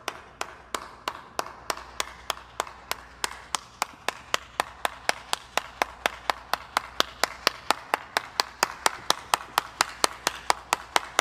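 One person clapping their hands in a steady run of single claps, about three to four a second, getting a little louder and faster toward the end.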